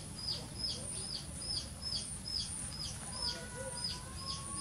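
High, short chirps, each falling in pitch, repeated evenly about three to four times a second.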